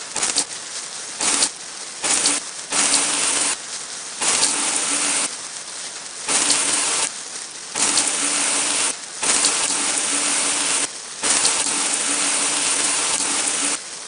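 Water hissing from a fire hose, spraying in about nine on-and-off spurts, some brief and some over two seconds long, with a quieter steady hiss between them.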